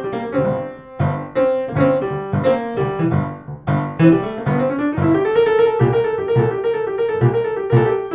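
Background music played on piano, a blues piece.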